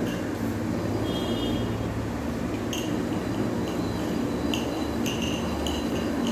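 Stone hand quern (thiriyal) being turned by its wooden handle, the upper stone grinding round on the lower one with a steady low rumble. Light clinks come several times in the second half.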